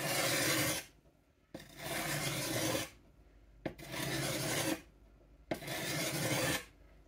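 Steel sheath knife blade pushed across a sharpening stone in four slow forward strokes, each a grating scrape about a second long that starts with a click as the edge meets the stone.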